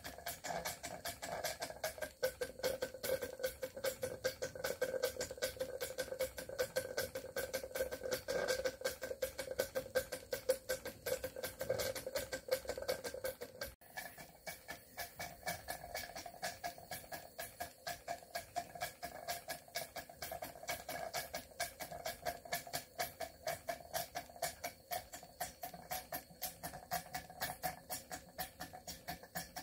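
Model steam beam engine running steadily, its exhaust and valve beats making a quick, even knocking rhythm over a steady hum.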